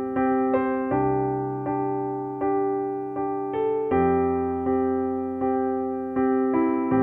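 Calm background music: a slow melody of evenly spaced struck notes, about one every three-quarters of a second, each fading before the next, over a low held bass note that changes twice.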